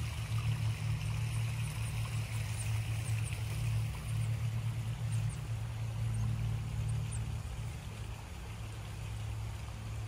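Faint, high-pitched cheeps of baby birds in a hanging birdhouse: a scatter of short downward chirps that stop about three-quarters of the way through. Under them runs a steady low hum with a running-water sound.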